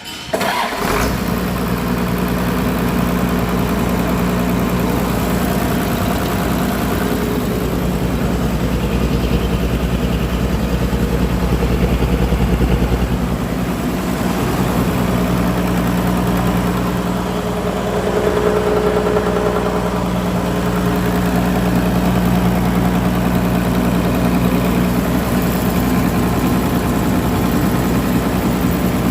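Rebuilt Mitsubishi Fuso 6D16 six-cylinder diesel engine starting up about half a second in and then running steadily, its level rising a little and easing back about halfway through.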